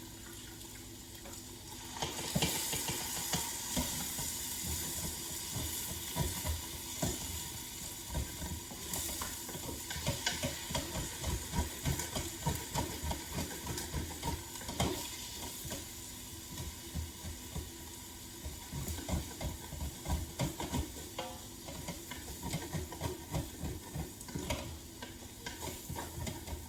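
Vegetable stock sizzling in a hot Instant Pot's inner pot as a wooden spoon stirs and scrapes the bottom to deglaze it, in repeated short strokes. The sizzle starts about two seconds in.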